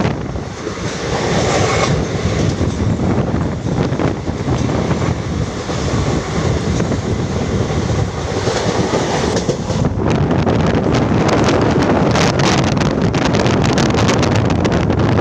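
A moving train heard from on board: steady rumble and clatter of the wheels on the rails, with wind buffeting the microphone. The clatter grows denser about two-thirds of the way in.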